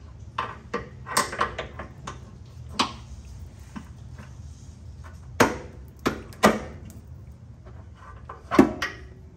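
Exhaust hanger removal pliers and hands working a rubber exhaust hanger off its rod under a Subaru Outback's muffler: scattered sharp clicks and knocks of metal and rubber, the loudest about halfway through and near the end.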